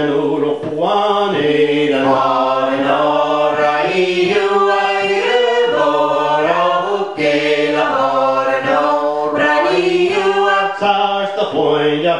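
Unaccompanied Scottish Gaelic song with a vocable refrain, sung together by a small group of men's and women's voices.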